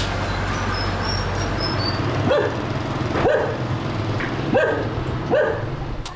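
A dog barking four times, about a second apart, over a steady background hiss.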